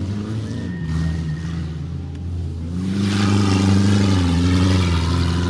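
Race car engine driven hard on a dirt track, its pitch rising and falling with the throttle. It gets louder about three seconds in as it revs up, with a rushing noise over it.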